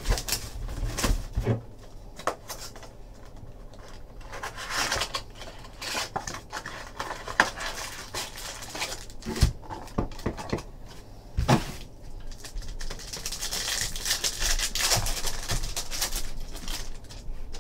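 A cardboard trading-card mini box and a foil card pack being opened by hand: scattered crinkling, tearing and rustling with a few soft knocks as the packaging is handled.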